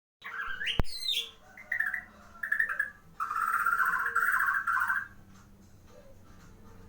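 Shama (murai batu) singing: a run of varied whistled phrases with a sharp click about a second in, then a rapid trilled phrase of nearly two seconds that stops about five seconds in.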